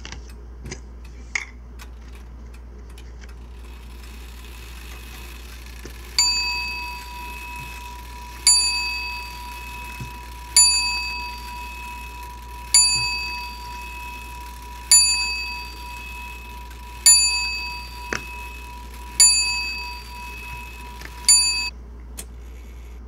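A small bell struck eight times at an even pace, about one ring every two seconds, each ring dying away, over a steady high-pitched tone that cuts off just before the end. A couple of light clicks come in the first two seconds.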